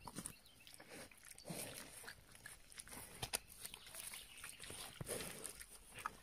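A wild boar chewing and tearing at a raw fish: irregular crunches and sharp clicks of its jaws.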